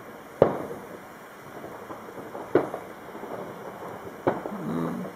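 Three sharp clicks about two seconds apart over a faint steady hiss, with a brief low voiced sound just after the last click.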